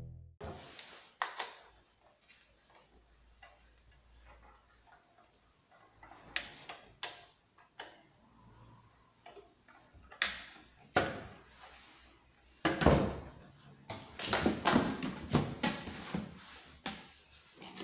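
Handling sounds of a new Husqvarna 545 Mark II chainsaw, not running, on a wooden workbench: scattered knocks and clicks as it is picked up and turned around. A busier run of knocks and scrapes comes in the second half, as the cardboard box beside it is moved.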